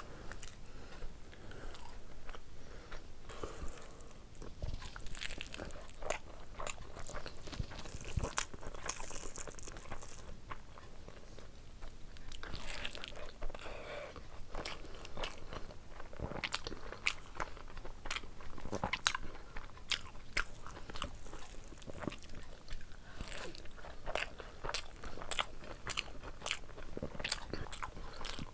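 A person chewing mouthfuls of rice and curry eaten by hand, with many irregular wet mouth clicks and crisp crunchy bites.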